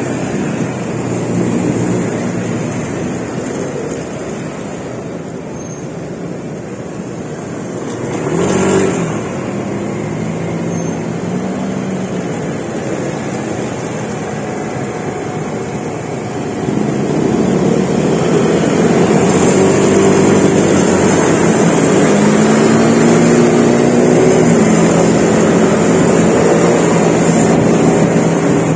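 Vehicle engine and road noise while travelling in traffic. There is a brief louder swell about a third of the way in, and a little past halfway the engine gets louder, its pitch rising in steps as it picks up speed.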